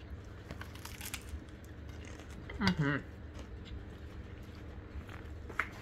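Faint chewing of pizza crust, soft crunching with small scattered clicks, and a brief voice sound a little past halfway.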